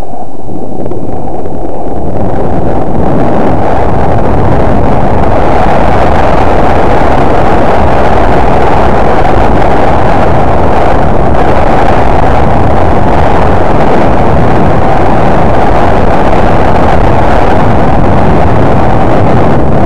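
Heavy wind noise buffeting the camera's microphone while riding down a snow slope. It builds over the first couple of seconds, then stays as a loud, steady rush.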